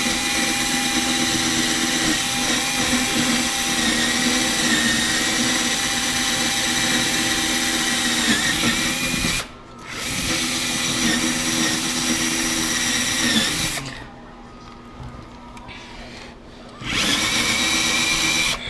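Household drill turning a 1-inch hole saw through a thick wooden desktop, its motor running at a steady pitch under load. It stops for a moment about halfway through, runs on, goes quiet for a few seconds, then starts cutting again near the end.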